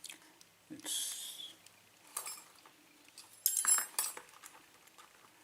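Small steel lockpicking tools, tension wrenches, clinking against each other as they are picked through and handled, in three short bursts of metallic jingling.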